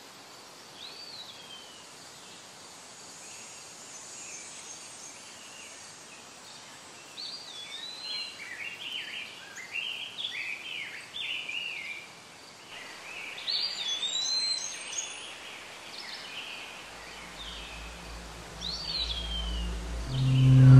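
Songbirds chirping and whistling, with short downward-sweeping calls, over a steady outdoor hiss. A low rumble swells in near the end.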